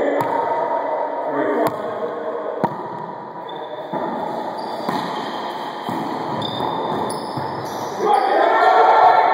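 Wallyball rally in an enclosed racquetball court, echoing. There are three sharp smacks of the ball in the first three seconds, high squeaks of sneakers on the hardwood floor, and players' voices that get louder near the end.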